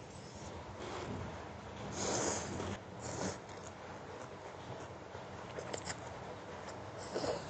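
Close-miked eating of Khmer rice noodles (nom banh chok): mouth sounds of slurping and chewing, loudest about two seconds in, with small wet clicks later on.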